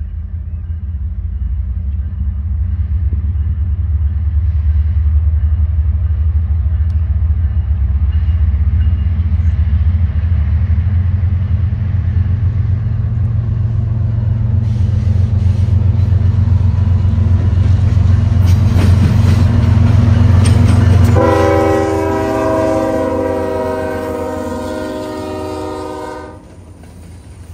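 CSX diesel freight locomotives approaching and passing close by: a deep engine rumble builds steadily, with wheels clicking over the rails. Then a locomotive's multi-note air horn sounds one long blast of about five seconds and cuts off suddenly.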